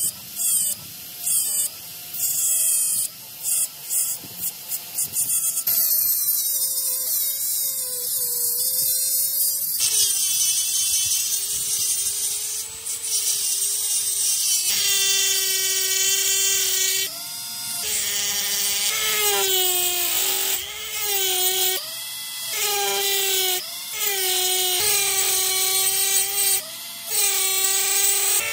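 Electric power tool motor whining on metalwork. It is switched on and off in quick short bursts for the first few seconds, then runs in longer stretches with its pitch repeatedly sagging and recovering.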